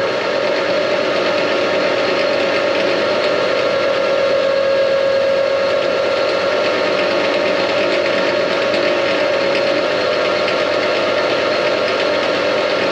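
Metal-turning lathe running at steady speed with the spindle and chuck turning a steel shaft, giving an even machine drone with a steady mid-pitched whine from the drive.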